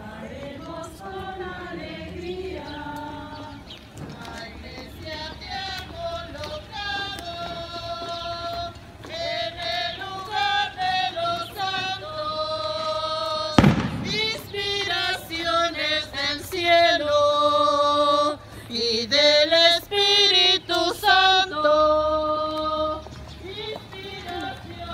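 A procession crowd singing a Catholic hymn together, mostly women's voices, in held, gliding notes that grow louder partway through. A single sharp bang cuts in about halfway through.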